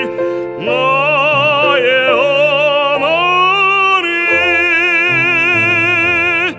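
A male classical voice sings the closing phrases of a Korean art song with wide vibrato over instrumental accompaniment. The last note is held from about four seconds in and cuts off at the very end, closing the song.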